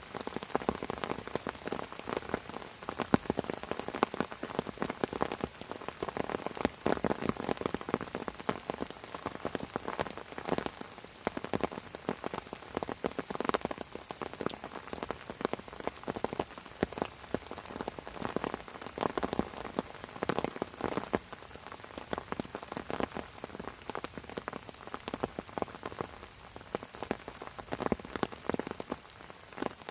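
Steady rain falling on fern fronds, a dense patter of many drops tapping on the leaves with occasional louder single drips.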